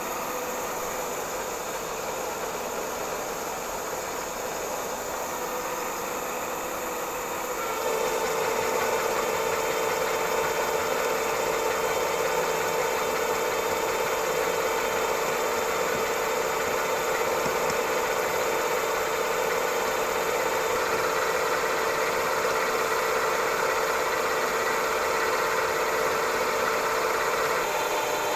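Bridgeport milling machine running at 325 RPM with a 3-flute end mill cutting a keyway into a 1045 steel shaft, a steady machining noise. About eight seconds in it grows louder and a steady tone sets in, holding until near the end.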